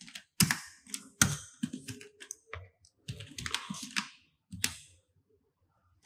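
Computer keyboard typing: a run of uneven keystrokes that stops about five seconds in.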